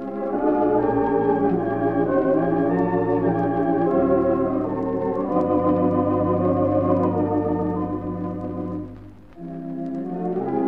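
Wurlitzer theatre pipe organ playing a slow melody over held chords, in an old 1926–1933 recording. The sound drops away briefly about nine seconds in, then the playing resumes.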